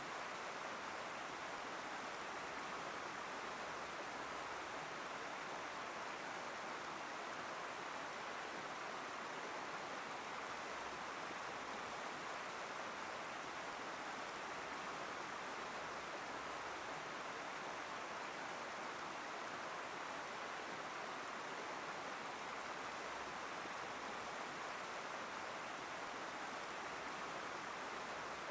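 Fast-flowing Chehalis River floodwater rushing steadily, an even, unbroken rush of moving water.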